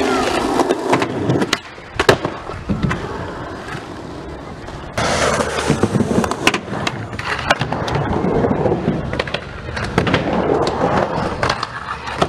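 Skateboard wheels rolling over concrete, with several sharp clacks of the board hitting the ground. The rolling drops away about one and a half seconds in and comes back loudly about five seconds in.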